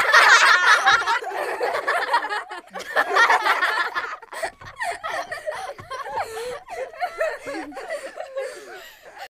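People laughing, with snatches of chatter between the laughs.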